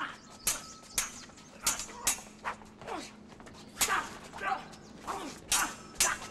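A series of sharp, irregular clacks, about one to two a second, several of them followed by a quick falling swish.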